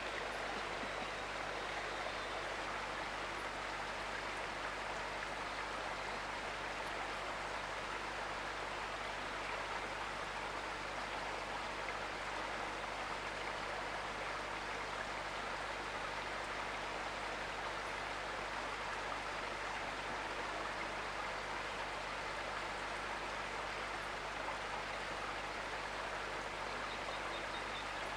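Steady rush of a bush creek running below, an even water noise with no distinct events.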